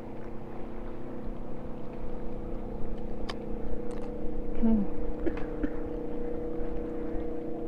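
Speedboat engine running steadily out on the lake, a continuous even drone, with a few light clicks over it.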